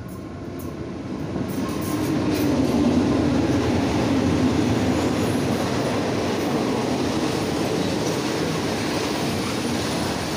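A diesel-hauled passenger train running in along the platform. The locomotive's engine grows louder over the first few seconds and is loudest about three seconds in, then the coaches follow with a steady rumble and rattle of wheels on the rails.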